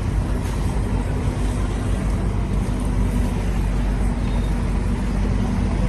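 Congested city street traffic: a steady low rumble of slow-moving and idling vehicles, with a constant low engine hum.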